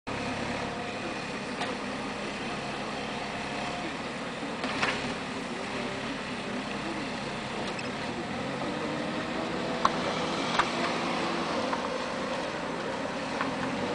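Wheeled backhoe loader's diesel engine running steadily while it tips asphalt from its front bucket and drives off, with a few short sharp knocks, one about five seconds in and two about ten seconds in.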